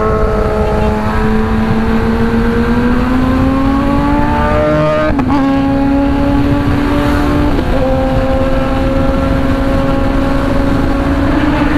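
Multi-cylinder superbike engine under way at high revs, its note climbing steadily. About five seconds in there is a short break, like a gear change, and it then holds fairly steady with a small step near eight seconds, all over steady wind rush.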